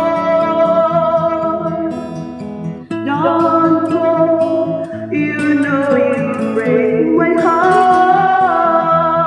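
A woman singing karaoke into a handheld microphone over a backing track with guitar. She holds long sung notes, with short breaks about three and five seconds in and a wavering vibrato note near the end.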